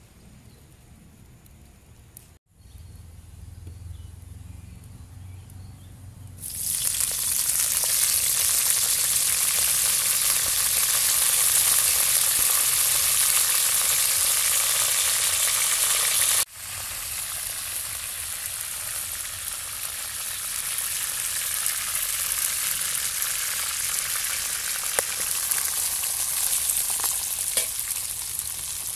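Hot oil in a metal wok sizzling as curry and pandan leaves fry in it. The sizzle starts suddenly about six seconds in, drops abruptly about halfway, then carries on more softly.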